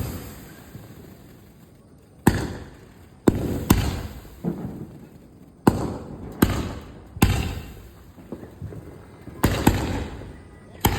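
Cock Brand sound firecrackers going off one after another: about eight sharp bangs at uneven intervals, each trailing off in an echo.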